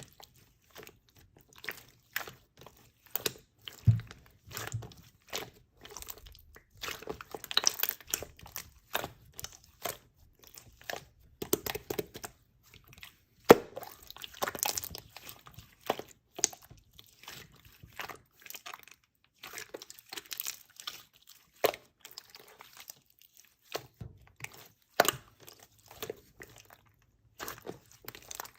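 Slime being squeezed and pressed by hand, giving many short, irregular pops and crackles with brief pauses between them.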